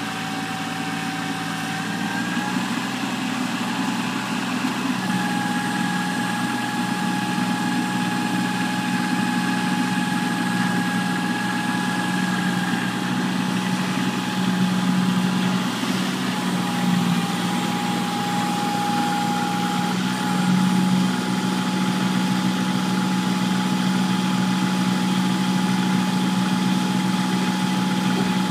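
Kubota L3240 tractor's diesel engine running steadily, its speed and loudness picking up about two seconds in. A thin, steady higher whine comes and goes over the engine note.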